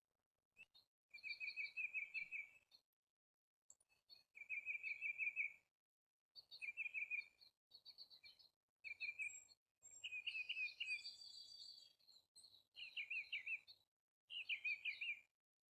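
A songbird singing a run of short, quick trilled phrases, each about a second long, with brief pauses between them.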